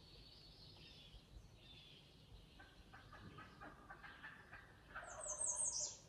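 Wild turkey gobbler gobbling: faint rattling gobbles a few seconds in, then a louder gobble of about a second near the end.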